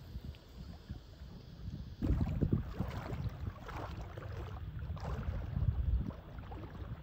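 Gusty wind buffeting the microphone, stronger from about two seconds in, with small waves lapping and splashing at the water's edge.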